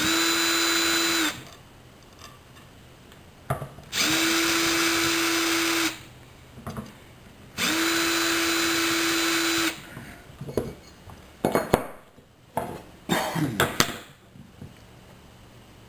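Cordless drill boring through the holes of a steel plate into a wooden board. It runs in three bursts: the first stops about a second in, then two more of about two seconds each, each with a steady motor whine. Near the end comes a run of knocks and clatter as things are handled on the bench.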